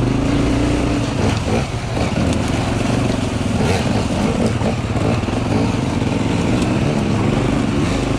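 Dirt bike engine running at steady low throttle on a rough trail, heard from on the bike; the revs ease off briefly about a second and a half in, with a few knocks, then pick back up.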